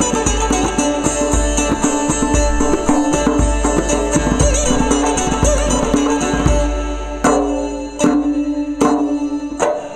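Sitar and tombak, a Persian goblet drum, playing fast together over the sitar's ringing drone. From about seven seconds in, the piece closes on four heavy accented strokes about three-quarters of a second apart, the drone ringing on between them.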